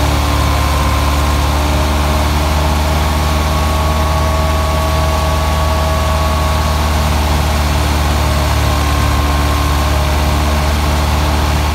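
Ford 3610's three-cylinder diesel engine running steadily under PTO load, driving a wheat thresher that whirs along with it; a steady deep hum with a faint higher whine.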